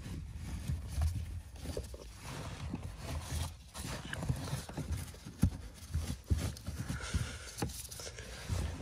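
Hands working under a car's dashboard at the cabin filter housing: irregular light knocks and clicks of plastic trim and panels being handled, with some rustling.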